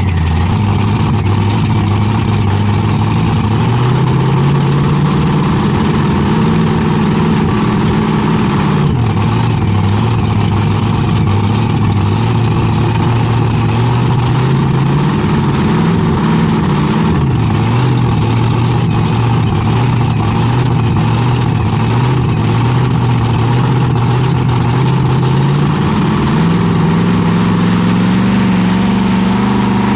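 Two-wheel-drive competition pulling tractor's engine running at a fast, loud idle, heard from the cab. The revs rise and fall a few times and pick up again near the end, ahead of the pull.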